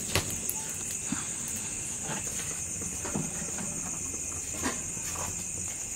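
Crickets chirring in a steady high-pitched drone, with a few scattered sharp crackles from a wood fire.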